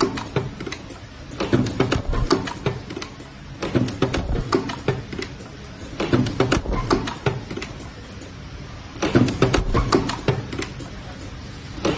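Semi-automatic KN95 mask spot welding machine cycling, its pneumatic cylinders driving the welding head down and back up. Each cycle gives a burst of sharp clicks and clacks, about every two and a half seconds, four times.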